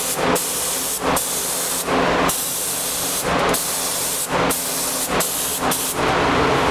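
SATA gravity-feed paint spray gun spraying white paint in passes: a loud, steady hiss of compressed air and atomised paint, broken by short dips about once a second. A faint steady low hum runs underneath.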